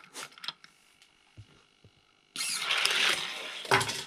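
Plastic clicks as a die-cast Hot Wheels car is set in the start gate of an orange plastic drag track. About two seconds later the car runs down the track with a loud rushing rattle for about a second and a half, which ends in a sharp knock.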